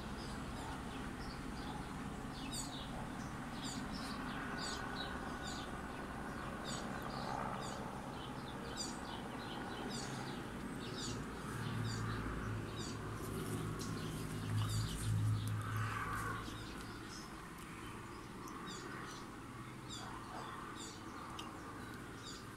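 Small birds chirping over and over, above the low steady drone of a distant helicopter. The drone swells a little about halfway through, then fades.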